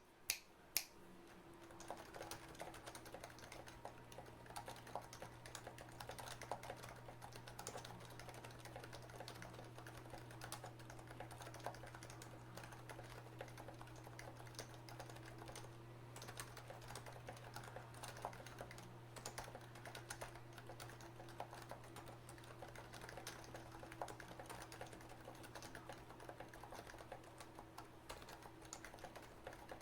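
Fast typing on an HHKB Professional JP Type-S keyboard's silenced Topre switches, a dense, irregular run of soft key strokes with a few sharper strokes in the first second. The left Shift's stabilizer clip is semi-broken, which gives that key an odd sound. A steady low hum runs underneath.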